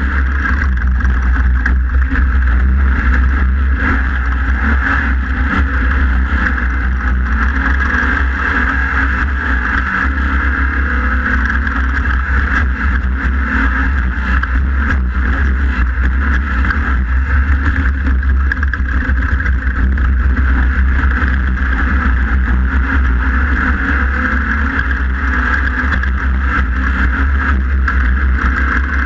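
Class 1600 off-road race car's air-cooled VW 1600 cc engine running hard and steady under race load, heard on board, with a heavy low rumble underneath.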